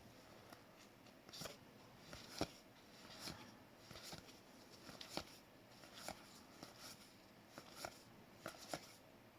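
Faint, irregular clicks and soft rustles of O-Pee-Chee hockey cards being handled, slid and set down one after another.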